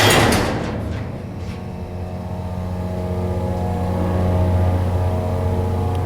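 Montgomery freight elevator's motor running with a steady hum as the car travels up, after a short loud noisy burst at the very start. It runs smoothly, in good order.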